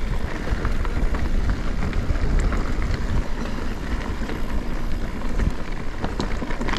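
Riding noise from an electric mountain bike on a wet trail: steady low wind rumble on the microphone with tyres rolling over wet ground and a few small clicks.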